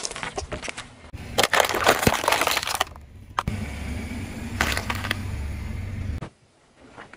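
A car tyre crushing a stack of cardboard matchboxes, crackling at first and then crunching loudly for a couple of seconds. After a short break there is a steady low rumble of the rolling car, with a crunch midway as the tyre flattens a head of Chinese cabbage.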